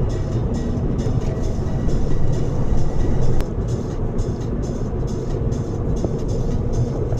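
Steady low rumble of a car driving, with music playing over it that has a quick, even beat.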